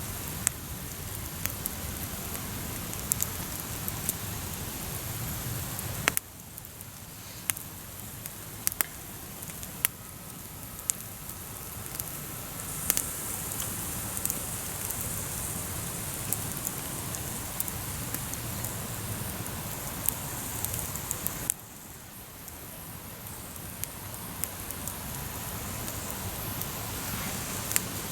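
Small campfire crackling with sausages roasting on the coals: scattered sharp pops and snaps over a steady hiss, with a sausage splitting in the heat.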